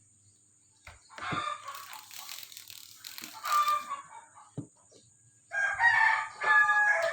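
Chickens calling, with a rooster crowing; the loudest and longest call comes near the end.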